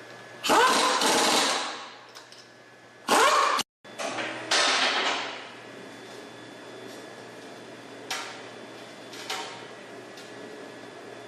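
Electric parking brake caliper actuator motor on a 2012 Hyundai Grandeur whirring in three short runs, the first about a second long, its pitch rising and falling. Two fainter brief runs follow later.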